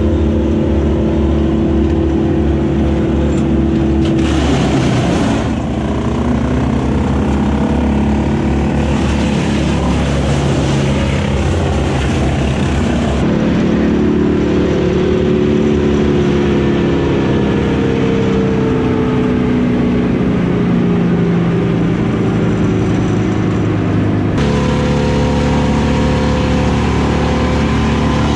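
Heavy machinery engines running steadily: the machine working the grapple boom and a Bandit brush chipper. The engine tones shift abruptly about halfway through and again near the end.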